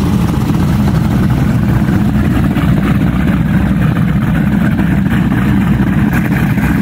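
Triple supercharged engines of a 43-foot Scarab powerboat idling steadily during a dockside warm-up, a loud, even, low rumble that does not change.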